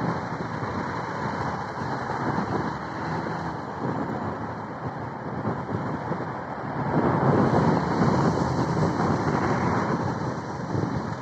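Road and traffic noise heard from a car moving slowly in city traffic, a steady rush that grows louder for a few seconds past the middle.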